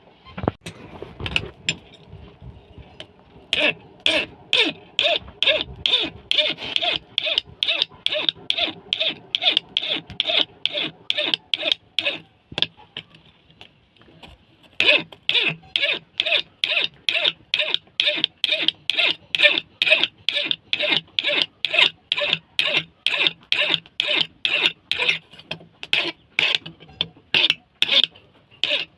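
Steel of a chisel being worked by hand against an abrasive, in rapid back-and-forth scraping strokes at about two to three a second. The strokes come in two long runs, with a pause of a couple of seconds in the middle.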